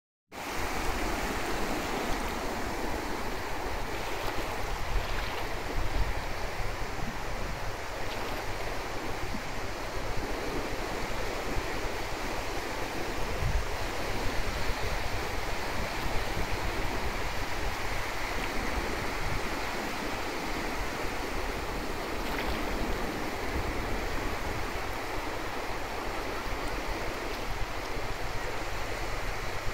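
Small waves washing and lapping over a flat sandy shore in a steady, continuous rush, with a low rumble of wind on the microphone underneath.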